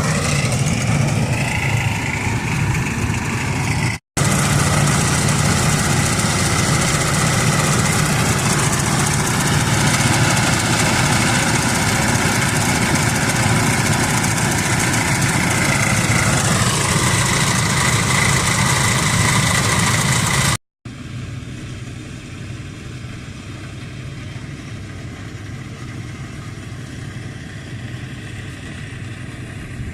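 A motorised farm machine running steadily, in three edited stretches. Its pitch drops about sixteen seconds in, and the last stretch is quieter.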